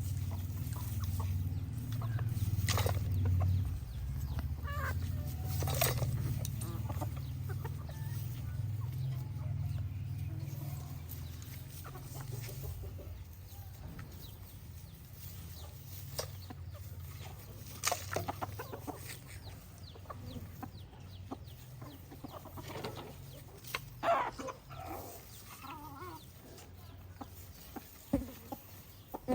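A flock of chickens clucking, with scattered louder calls. A low rumble underneath fades out about halfway through.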